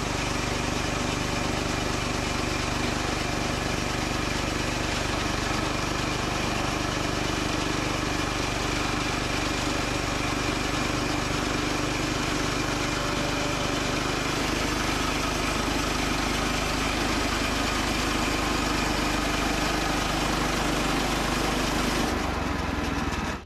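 Gas engine of a Woodland Mills portable bandsaw sawmill running steadily, cutting off abruptly near the end.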